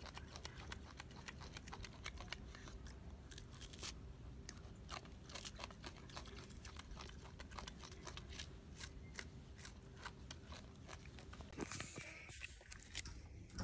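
Monkey chewing food: irregular crisp crunching clicks, with a change in the sound about three-quarters of the way through.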